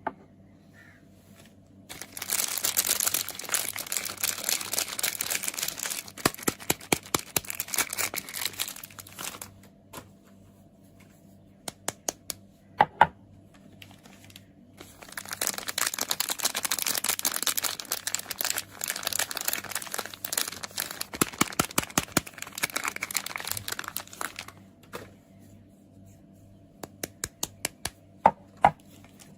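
Soap packaging being unwrapped by hand: crisp crinkling and tearing in two long stretches, with short runs of light tapping in between and near the end.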